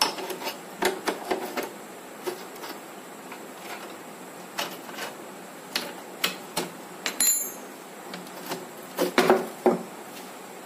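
Scattered clicks and knocks of metal parts being handled as a wet grinder's electric motor is shifted on its mounting bolts to tension the drive belt. The knocks are loudest in a cluster about nine seconds in.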